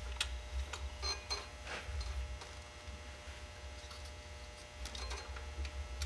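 Scattered light metal clicks and knocks of a breaker bar and socket adapter being fitted onto the serpentine belt tensioner, over a steady low hum.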